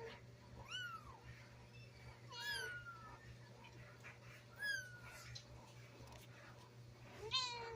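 Newborn kittens mewing: four thin, high-pitched cries about two seconds apart, each falling in pitch.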